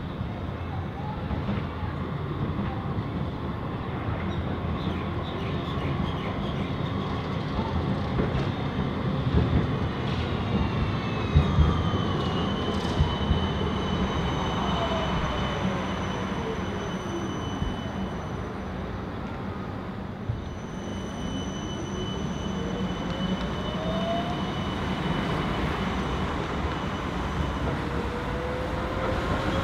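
Melbourne D1-class Combino tram running along street rails amid road traffic, with a few knocks around the middle. The tram's electric drive whine slides down in pitch, and a whine rises again later on.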